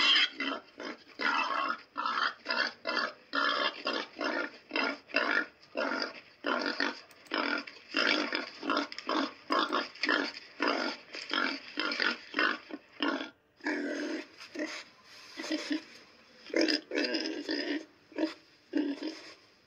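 Pig grunting in a rapid run of short grunts, about two or three a second, with a few longer grunts in the last few seconds.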